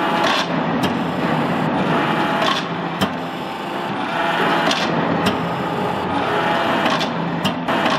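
Anyang 25-ton blacksmith hydraulic press working a red-hot steel bar: a steady, loud mechanical whir from its hydraulic power unit, broken by several sharp clicks spaced irregularly, every second or two.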